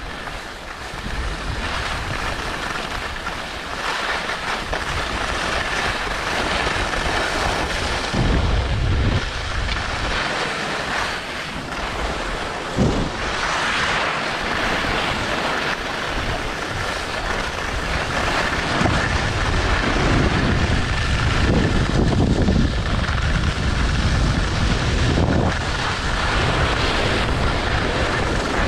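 Wind rushing over a skier's camera microphone during a downhill run, with skis hissing and scraping over hard-packed snow. Low gusts buffet the microphone now and then, and there is one sharp knock about halfway through.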